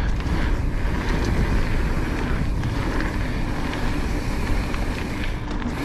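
Wind rumbling on the microphone of a rider's camera while pedalling a mountain bike uphill: a steady low rumble.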